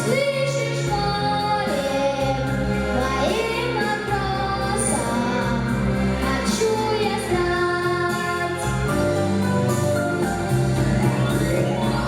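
A young boy singing a pop song solo over instrumental accompaniment.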